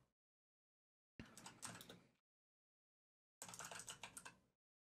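Computer keyboard typing in two short bursts of keystrokes, each about a second long, with near silence between them.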